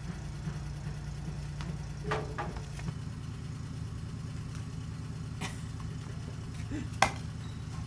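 Suzuki van engine idling with a steady low hum while it warms up. Over it come a few sharp knocks as a cricket ball is bowled and played, the loudest near the end.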